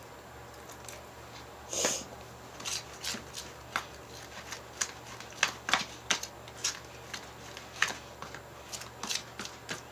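Clear slime being squeezed and stretched by hand, giving a string of irregular sticky clicks and pops.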